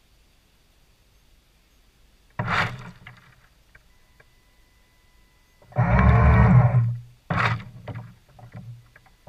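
Carp bait boat on the water: its hopper drops its load of pellets and boilies into the water about two seconds in, then the boat's motors run in several short bursts, the longest and loudest about six seconds in.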